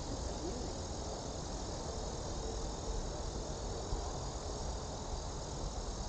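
Steady outdoor ambience: insects keep up an even, high hiss over a low rumble.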